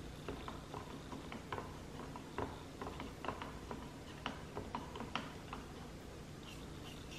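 A plastic spoon stirring alginate molding mix in water in a plastic cup, ticking lightly and unevenly against the cup's side two or three times a second.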